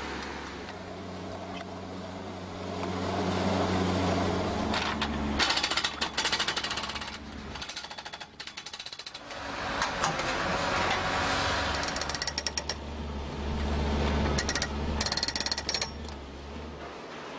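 A machine engine running steadily, with several bursts of rapid, evenly repeated mechanical hammering.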